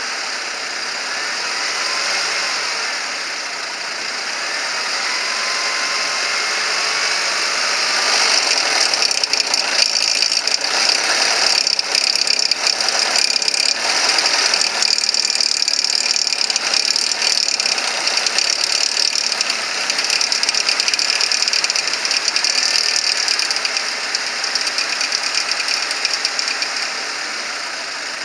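Mercedes-Benz M271 four-cylinder engine idling with a fast mechanical ticking rattle that grows louder for a stretch in the middle. This is the abnormal engine noise the check was meant to show.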